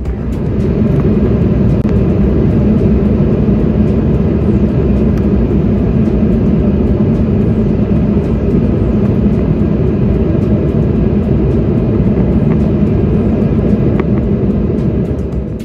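Steady engine and rushing-air noise inside a jet airliner's cabin in flight, a dense low-pitched rumble with no changes in pitch, fading in over the first second.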